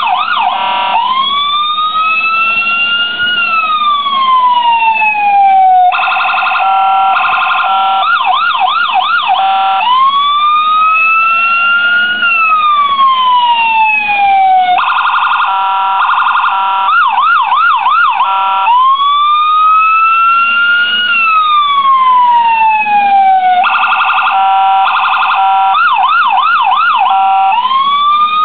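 Electronic police siren from the model car's light-and-siren unit, cycling through its tones. A long wail rises and then falls, a rapid high-low warble follows, then a quick yelp, and the pattern repeats about every nine seconds.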